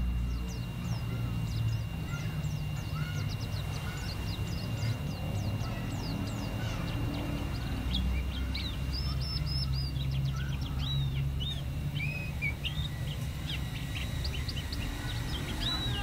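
Caged white-eye (pleci) singing: a quick, continuous run of high, thin chirps and twittering notes, busier in the second half, over a steady low background rumble.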